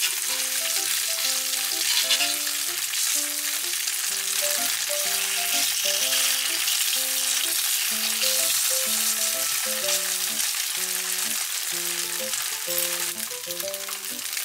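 Slices of tofu sizzling steadily in hot oil in a frying pan as they brown golden. A light background music melody of short notes plays underneath.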